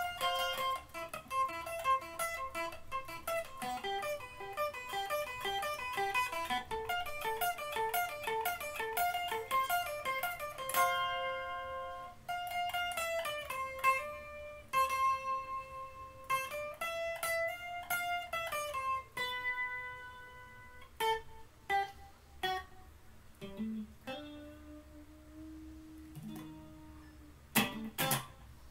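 Solo electric guitar: a fast run of single picked notes, then long held notes bent up and back down, a few sparse notes and a low sustained note, and some strummed chords near the end.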